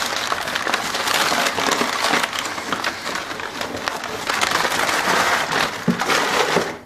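Crumpled brown kraft packing paper crinkling and rustling as it is pulled out of a cardboard shipping box and handled, with a busy crackle throughout that falls away sharply near the end.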